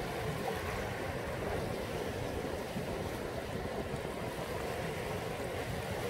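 Small waves washing up and breaking on a sandy beach, a steady rush of surf.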